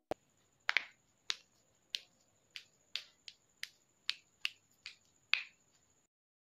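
Irregular sharp clicks and taps, roughly two a second, from hands rolling tapioca-dough boba pearls on a wooden table, over a faint steady high whine. They stop about six seconds in.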